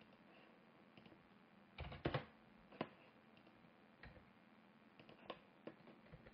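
Scattered clicks of a computer keyboard and mouse, single taps with quiet between, and a louder cluster of clicks about two seconds in.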